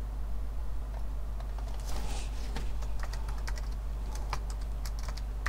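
Typing on a computer keyboard: irregular key presses, a few at a time.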